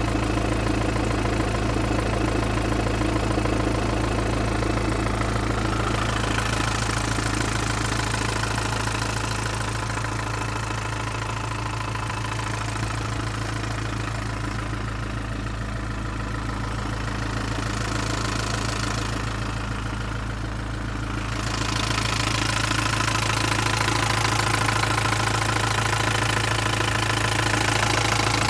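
Used Japanese truck's engine idling steadily, with a little less loudness for a stretch in the middle.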